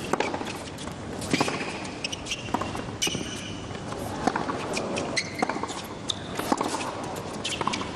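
Tennis rally on a hard court: the ball is struck back and forth by racquets in sharp pops a second or so apart, with shoes squeaking and scuffing on the court between shots.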